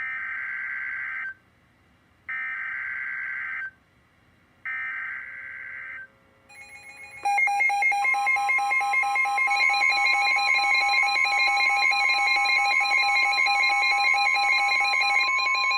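Emergency Alert System SAME header: three short bursts of screeching digital data tones about a second apart. From about seven seconds these give way to a loud, steady alert tone mixed with a fast pulsing alarm, announcing a test tornado warning.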